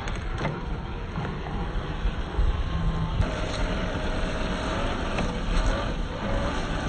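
Traxxas TRX-4 Ford Bronco RC crawler driving off-road: its small electric motor and geared drivetrain whine, the whine setting in about three seconds in and wavering in pitch, over a steady low rumble.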